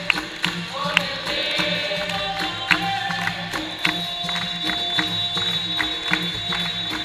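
Live capoeira music: a steady, rhythmic percussion beat with sharp tambourine-like pandeiro strikes.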